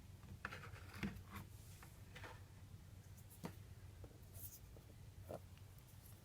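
Faint writing sounds in a small room: a few short scratches and light taps spread through the pause, with no speech.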